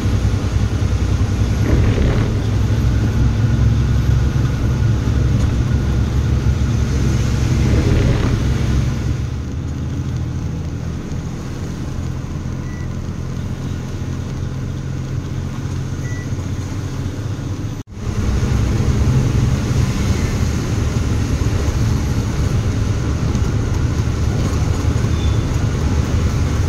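Heavy diesel truck engine running under load as the truck climbs a steep ghat road, a steady low drone. It drops somewhat quieter from about a third of the way in, breaks off for an instant about two-thirds through, then resumes at full level.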